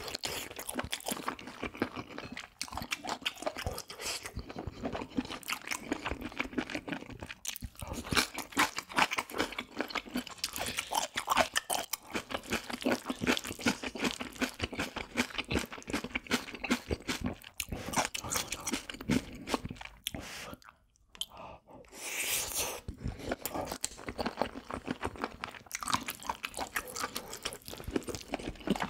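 Close-miked chewing of spicy fried rice: continuous wet, crunchy mouth sounds, with a short pause about two-thirds of the way through.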